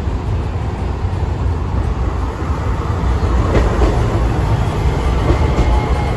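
Hiroshima Electric Railway low-floor articulated tram rolling into the stop alongside the platform. It grows louder as it draws level, with a few wheel clacks over the rails about halfway through and a faint falling whine near the end as it slows.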